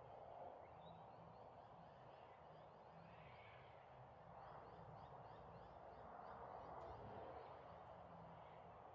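Near silence: faint outdoor dusk ambience, with soft distant bird calls now and then.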